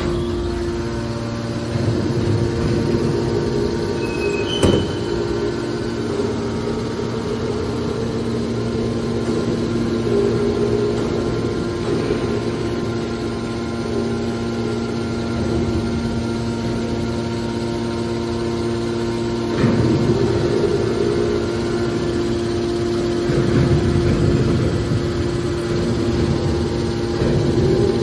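Electric motor and hydraulic pump of a scrap metal baler's power unit running with a steady hum. The noise swells louder a few times, with one sharp click about four and a half seconds in.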